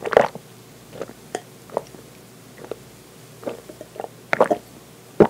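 Close-up swallowing gulps while drinking from a glass: a string of short, irregularly spaced swallows, the loudest at the start and again just before the end.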